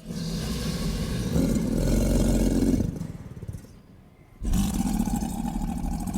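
American alligator bellowing: two deep, rumbling calls, the first about three seconds long, the second starting after a short pause.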